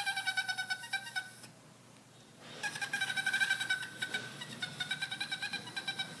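An animal's high-pitched, rapidly pulsing, warbling call in two long stretches, with a short pause between them a little after a second in.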